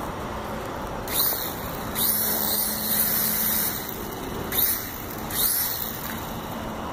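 A WLtoys V929 micro quadcopter's electric motors and propellers whining up in four short throttle bursts, each rising in pitch as it starts, the longest lasting about a second and a half, as it sits floating in a small tub of water.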